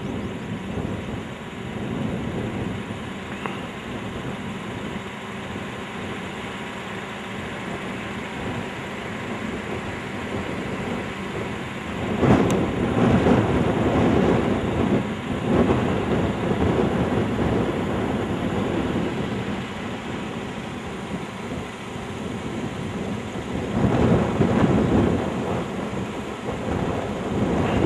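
Wind buffeting the camcorder microphone: a steady rumble that swells into louder gusts about twelve seconds in and again near the end.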